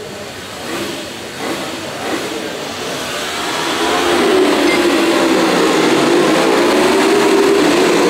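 A field of auto race motorcycles pulling away from the start, their engines swelling to a loud, steady drone about four seconds in.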